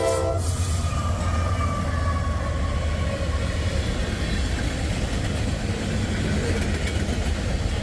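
Norfolk Southern freight train, mostly tank cars, rolling past with a steady rumble of steel wheels on rail. The locomotive's multi-chime air horn cuts off about half a second in.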